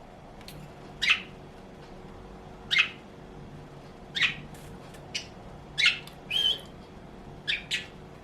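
Pet budgerigars giving short, sharp squawks and chirps, about nine calls scattered irregularly, one near the middle ending in a brief held whistle.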